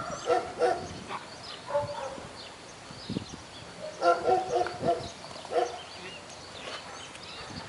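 German Shepherd barking in short bursts, a few seconds apart, with small birds chirping in the background.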